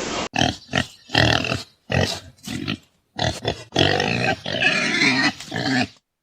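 A farm animal calling in a run of short, rough calls, some short and some longer, that cut off suddenly near the end.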